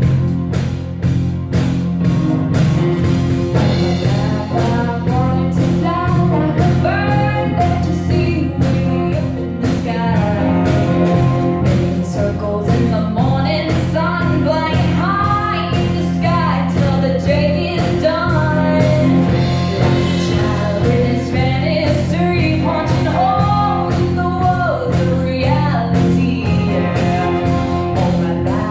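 Female lead singer performing live with a rock band behind her, drum kit keeping a steady beat. Her voice comes in a few seconds in and carries the melody over the band.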